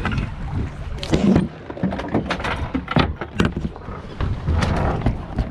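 Irregular knocks and clatter of gear being handled aboard a fiberglass boat, over a steady low rumble of wind on the microphone.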